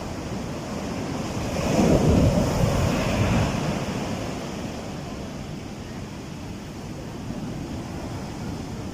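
High waves breaking in rough surf, with strong wind buffeting the microphone. One louder surge of surf comes about two seconds in and eases off by about four seconds.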